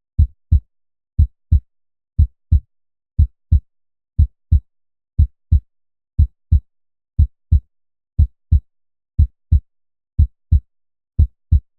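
Human heartbeat sound effect at 60 beats per minute: pairs of short low thumps, the second following the first by about a third of a second, repeating evenly once a second.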